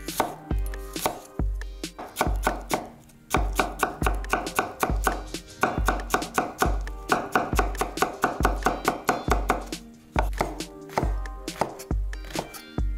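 Chef's knife chopping green bell pepper into small dice on a wooden cutting board: quick, repeated blade strikes against the board, moving on to slicing oyster mushrooms near the end. Background music with a steady beat plays underneath.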